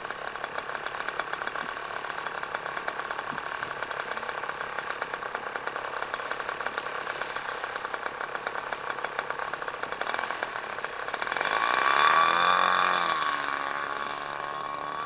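O.S. 91 FX two-stroke glow engine of an RC model plane idling with a rapid, even beat. About eleven seconds in it is throttled up, rising in pitch and loudness, then eases back to a steady speed above idle as the plane begins to taxi.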